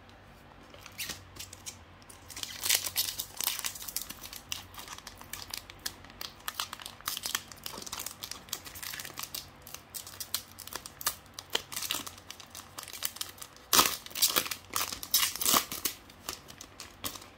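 Foil wrapper of a Pokémon card booster pack crinkling in the hands and being torn open: a continuous run of sharp crackles and rips, loudest about fourteen seconds in and again a second or so later.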